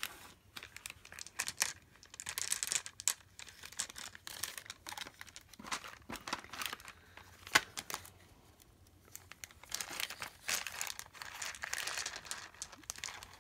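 Clear plastic bead bag crinkling and rustling in irregular spells as hands work it open, with a sharp click about seven and a half seconds in.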